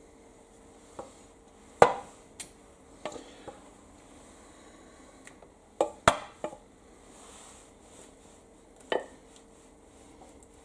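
Serving spoon clinking and knocking against a pot and plates while beans are dished up: a handful of separate sharp clinks, the loudest about two seconds and six seconds in.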